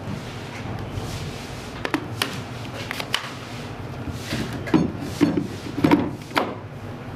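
Hard plastic clicking and clunking as a blender jug's lid is pressed on and the jug is set and twisted onto its motor base, with a few light clicks first and louder knocks in the second half.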